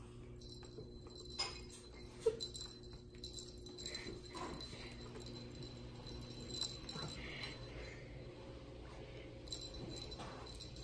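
A tabby kitten playing on a carpeted cat tree: faint short rustles and small sounds scattered throughout, with one sharp click about two seconds in.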